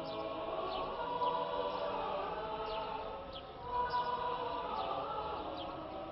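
Slow choral singing, several voices holding long notes.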